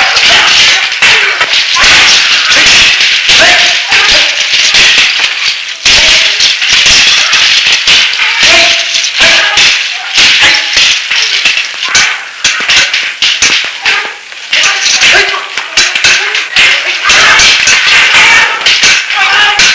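Sword-fight sound effects from an old martial-arts film: a dense, irregular run of sharp clacks from blades striking one another, with swishing swings, over music.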